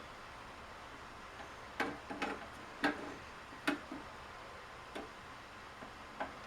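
Light, irregular clicks and knocks of a Keurig coffee maker's plastic housing being handled during disassembly, about six in all.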